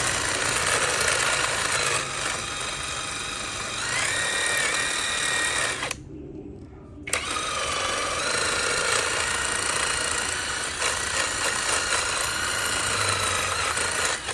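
A power tool running under load, cutting out for about a second some six seconds in, then starting again.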